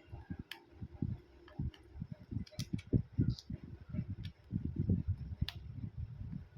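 Irregular soft knocks and sharp small clicks of tools and parts being handled while a smartphone is taken apart.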